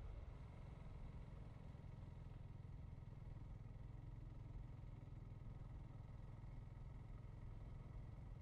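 Motorcycle riding along at a steady pace, heard faintly as an even low rumble.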